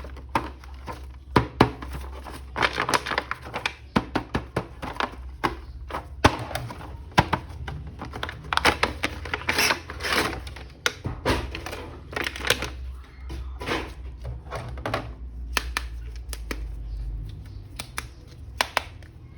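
Hands handling a plastic action figure and its packaging: a busy run of clicks, knocks and rustles.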